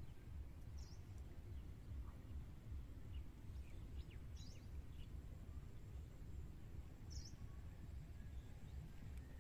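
Faint outdoor pond-side ambience: a low steady rumble with a small bird's short high chirp, heard three times a few seconds apart, and a few fainter chirps in between.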